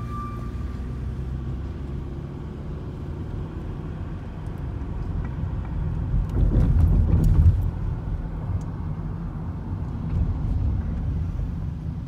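Car road noise heard from inside the cabin, a steady low rumble. It swells about six seconds in, with a few sharp knocks as the tyres cross railroad tracks.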